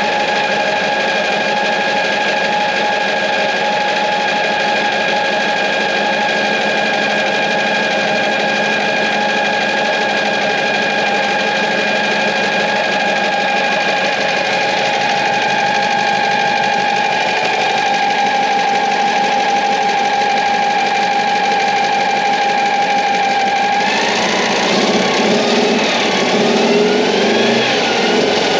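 Panhard AML's air-cooled flat-four petrol engine running at a steady idle, freshly fitted with new spark plugs and altered HT leads and being checked for the misfire that had made its tickover irregular. From about 24 s in it is revved up and down a few times.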